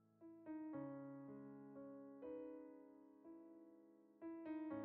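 Quiet background piano music, notes struck and left to ring and fade.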